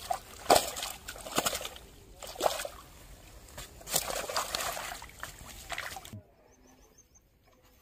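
Water splashing and sloshing as red-bellied pacu thrash in a mesh keep net being pulled through the shallows, a run of sharp splashes that cuts off suddenly about six seconds in.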